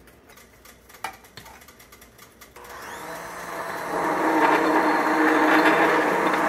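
A few light clicks, then a handheld immersion blender switches on about two and a half seconds in, growing louder over a second or so and then running steadily as it blends egg whites and gelatin powder in a glass measuring jug.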